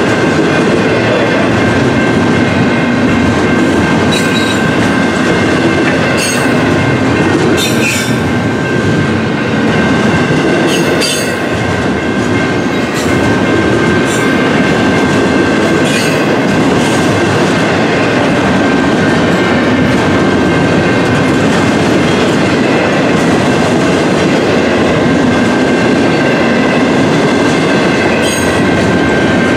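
Double-stack container cars of a freight train rolling past at speed: a steady loud rumble of steel wheels on rail, a thin steady high squeal and a scattering of sharp clicks as the wheels cross the rail joints.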